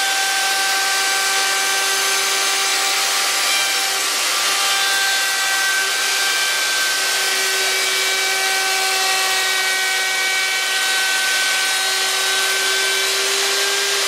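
Plunge router running at high speed while cutting a rebate groove along a hardwood frame, with a dust extractor drawing through its hose. The steady motor whine dips slightly in pitch as the bit takes the cut.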